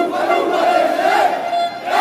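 Crowd of football supporters shouting and chanting in celebration, with a horn sounding in short repeated blasts over the voices.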